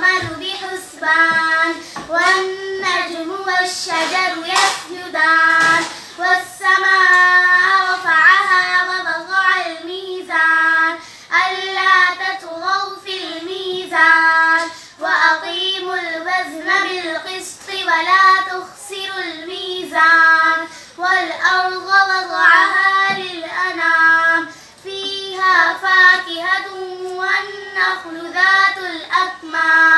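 Two young girls singing together unaccompanied, in sung phrases separated by short breaks for breath.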